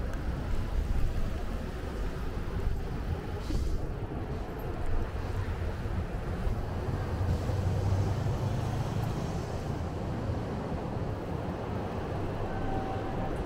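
Urban road traffic heard from a moving bicycle: a steady low rumble of passing vehicles that swells for a few seconds past the middle, with a short hiss a few seconds in.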